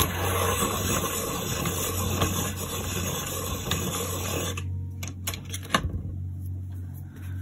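A Faber-Castell Polychromos coloured pencil being sharpened: a steady, noisy sharpening for about four and a half seconds, then a few light clicks and taps.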